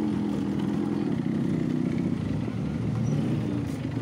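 1992 Yamaha RX100's single-cylinder two-stroke engine running steadily at low revs, its pitch wavering slightly as the motorcycle rolls slowly up to a fuel pump.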